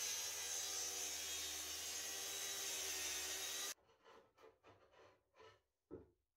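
Festool TS55 plunge track saw running steadily as it rips 18 mm Baltic birch plywood, stopping abruptly a little over halfway through. After that come short, quiet rubbing strokes, about three a second, of a hand tool worked on the plywood.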